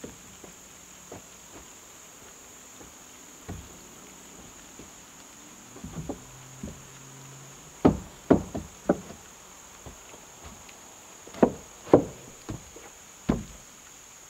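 A hammer driving nails into rough-sawn wooden sheathing boards on a timber wall frame. It comes as two runs of about four sharp blows, one about eight seconds in and another near the end, with a few lighter taps before them.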